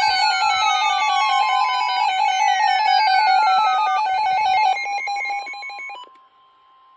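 Electronic alert tones: several steady tones pulsing rapidly, crossed by two long falling sweeps. About five seconds in the sound drops away, leaving one faint steady tone.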